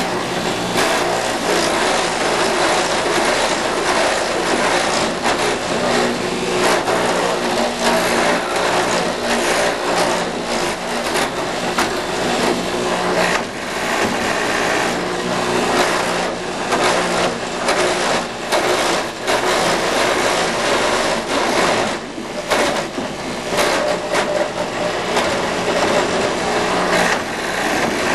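Clog-copying machine's fast-spinning cutters boring out the inside of a pair of wooden clogs: a steady motor hum under a continuous harsh rasp of wood being cut, its loudness wavering as the cutters are guided.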